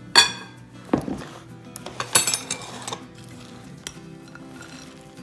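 Kitchen bowls clinking and knocking on a countertop: three sharp, ringing clinks of ceramic and glass about a second apart, over background music.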